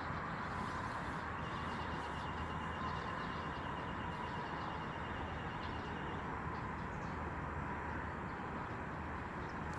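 Steady outdoor background noise, an even hiss over a low rumble with a faint steady hum. A faint rapid ticking sounds from about a second and a half in for several seconds.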